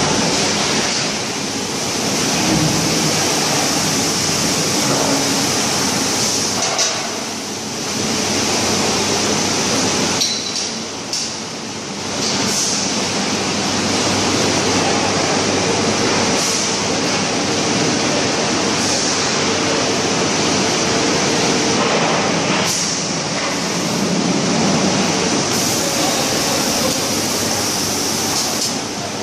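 Compressed-air paint spray guns in a steel-drum spray booth, hissing steadily over machinery noise; the hiss drops briefly twice, once a few seconds in and again around the middle.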